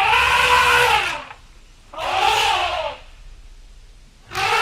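Elephant trumpeting: three calls of about a second each, each rising then falling in pitch.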